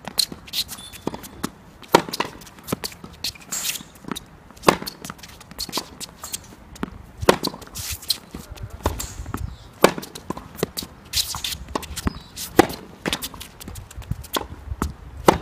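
Tennis ball struck by rackets in a rally: a sharp crack about every two and a half seconds, with fainter hits in between.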